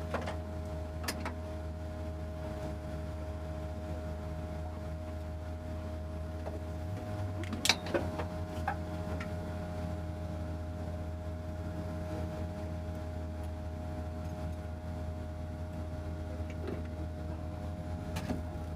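Race car engine running steadily at constant low revs, with a few light clicks and one sharp knock just under eight seconds in.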